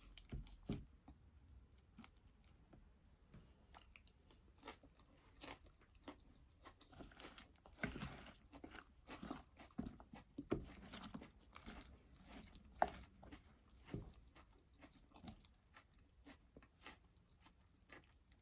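A person chewing a mouthful of raw salad up close, with faint irregular wet crunches and crackles throughout that come thicker and louder about halfway through.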